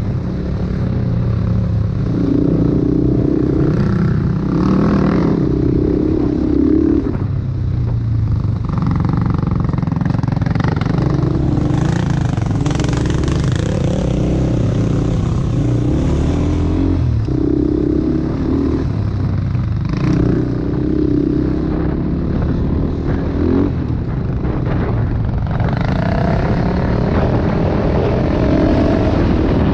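ATV engine running under way, its pitch rising and falling repeatedly with the throttle.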